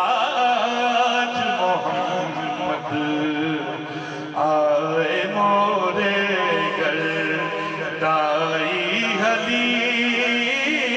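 A man singing a naat, a devotional song in praise of the Prophet, into a microphone, with long held, ornamented notes; a new, louder phrase begins about four seconds in.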